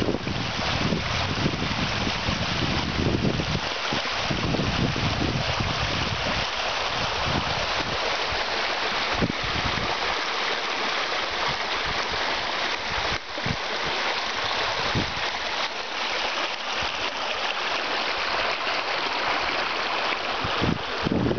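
Steady rush of water flowing along a stone-lined mill race that feeds water wheels.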